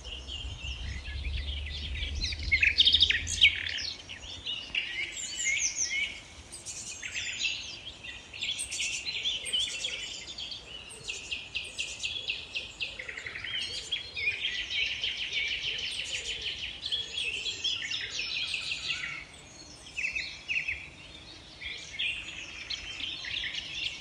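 Several common nightingales singing at once, their phrases of fast repeated notes, trills and whistles overlapping.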